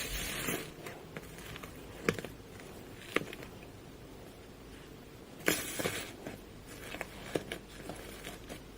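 Slime being squeezed and pressed by hand: irregular sticky pops and clicks, with two longer squishing bursts, one at the start and one about five and a half seconds in.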